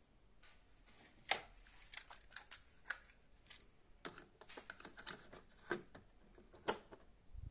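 Plastic clicks and rattles as a cassette is fitted into the open cassette door of a Klaudia 2 RMS 801 radio-cassette recorder and the door is pushed shut. There is a sharp click about a second in, and the loudest one comes near the end.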